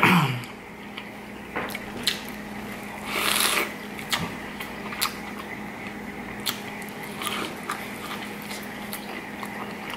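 Biting into corn on the cob, a crisp crunch of kernels about three seconds in, then close-up chewing with small wet clicks and smacks.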